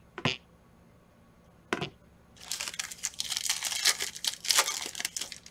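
Two short taps, then from about two and a half seconds in a 2021 Panini Prizm football card pack's wrapper being torn open with a crinkling crackle.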